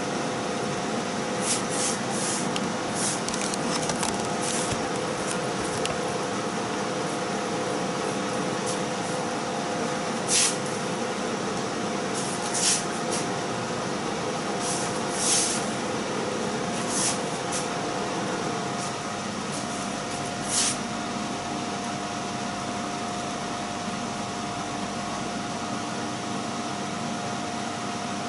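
Steady whir of a running fan with a low hum, and a few short, sharp hisses breaking over it, clustered early and then spaced a couple of seconds apart until about two-thirds of the way through.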